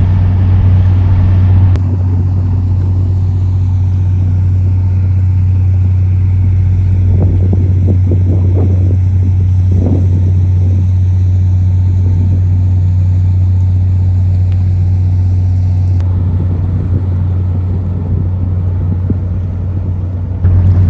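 Boat's outboard motor running steadily with a low drone. The sound cuts abruptly a few times, at about two seconds in, again near sixteen seconds, and just before the end.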